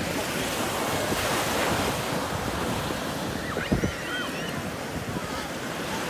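Rough sea surf breaking and washing up a sandy shore, with wind buffeting the microphone. The surf swells about a second in, and a short thump and a brief high wavering call come about halfway through.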